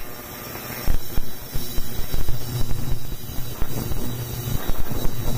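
VEVOR benchtop ultrasonic cleaner running its cycle: a steady low hum under a dense hiss with fine crackle from the bath, and a thin high tone held over it.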